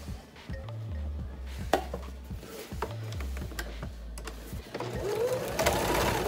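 Electric domestic sewing machine stitching a seam in short runs: the motor hum stops and restarts a couple of times, with clicks from the needle mechanism, as the start of the seam is locked with a back-and-forth stitch.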